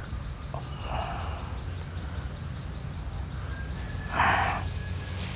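Outdoor ambience: a steady low rumble with small birds chirping in short, falling high notes, and a short breathy rush a little after four seconds in.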